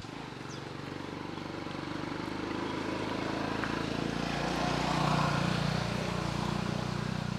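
A motor engine running steadily, growing louder over the first five seconds or so and then holding.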